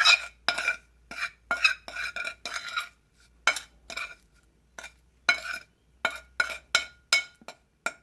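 A metal mixing tool scraping and clinking against a hard surface as a small batch of wet concrete paste is worked by hand. The strokes are short and ringing, about two a second, with a couple of brief pauses.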